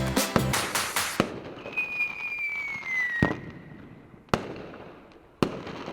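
Music cuts off about a second in. Then a firework whistles, sliding slowly down in pitch, and ends in a sharp bang, followed by two more single bangs about a second apart.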